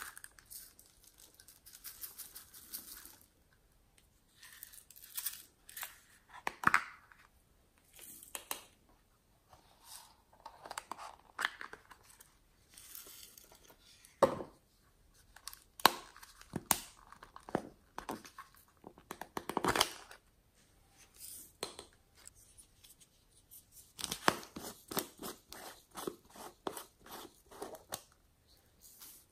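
Hands handling and opening small plastic containers and decorations: irregular clicks, taps and short scrapes of plastic cases and lids, with a quick run of clicks near the end as a plastic jar of glitter is opened.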